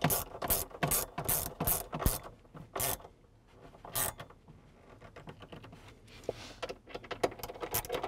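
Ratchet wrench clicking in quick strokes, about three a second, as bolts are run onto a Jeep JK dead pedal's mounting posts; the clicking thins out midway and picks up again near the end.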